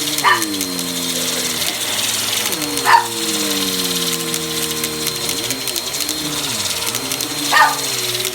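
A vacuum cleaner runs steadily, its motor pitch sagging and rising again as it is pushed over carpet. A dog barks sharply three times over it: near the start, about three seconds in, and near the end.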